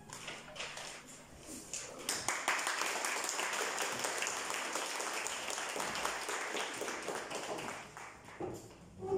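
Audience applauding, building over the first two seconds and dying away near the end.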